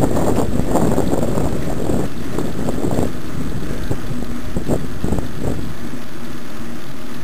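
Wind buffeting the microphone of a camera carried on a moving mountain bike: a loud, steady low rumble, with scattered knocks through the first few seconds and a few more a little past the middle.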